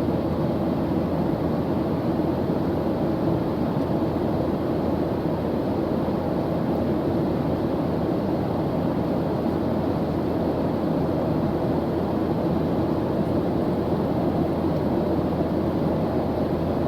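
Steady airliner engine drone as heard from inside the cabin in flight: an unchanging low rushing noise with a hum at its core.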